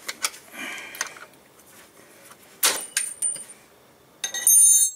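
Metal tools and parts being handled: scattered clicks and knocks, one sharp clank about two and a half seconds in, and near the end a half-second metallic clatter with a ringing, jingling tone.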